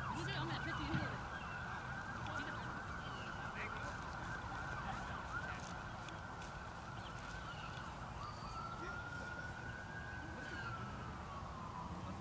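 Faint emergency-vehicle siren: a steady high tone that, about two-thirds of the way in, turns into a slow wail rising and then falling in pitch.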